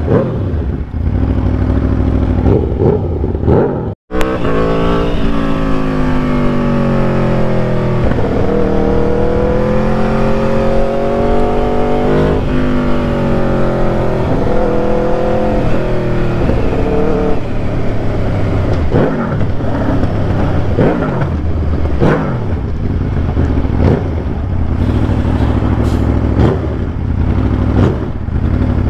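2014 Aprilia RSV4's V4 engine through a full aftermarket exhaust, being ridden hard: the revs climb and fall repeatedly as it pulls and backs off, with a brief dropout about four seconds in. In the later part the sound turns rougher, with sharp backfire pops on the overrun.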